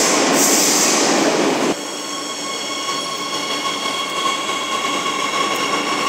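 Madrid Metro train running loud and rumbling at a station platform; about two seconds in, the sound cuts to a quieter train standing or moving slowly, with a steady high whine of several tones.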